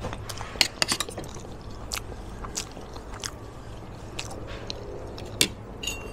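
A person chewing food, with irregular sharp clicks and scrapes of a metal spoon and fork against a ceramic plate; the loudest clicks come about half a second in and again near the end.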